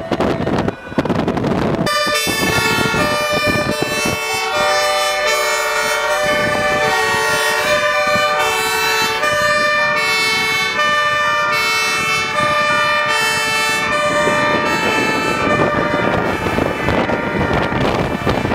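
Two-tone sirens of several fire engines and emergency vans sounding together as a convoy drives by, many overlapping tones stepping between high and low pitches. They start about two seconds in and fade near the end into wind and traffic noise.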